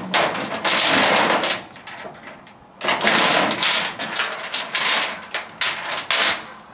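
Steel chain rattling and clanking as it is pulled over the truck's flatbed deck and a chain load binder's hooks are set into the links: two long rattling stretches, then a run of sharper clinks.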